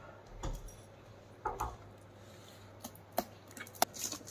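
Cardboard box being handled while its sealing tape is picked at and torn off by fingers: a scatter of light clicks and crinkles, coming more often in the second half.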